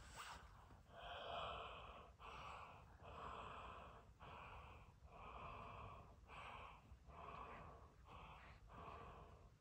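A man breathing warm breath onto a small child's cupped hands to warm them: a faint series of about nine long, breathy exhalations with short pauses between.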